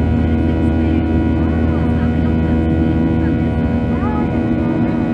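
Boeing 737-800's CFM56-7B turbofan engines running at takeoff thrust, heard from inside the cabin as a loud, steady drone with many held tones.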